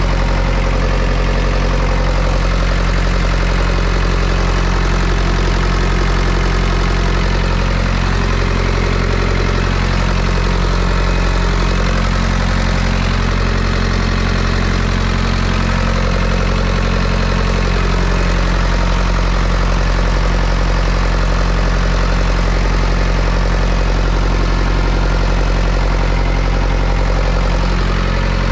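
Carrier 7500 trailer refrigeration unit's diesel engine running steadily after its service.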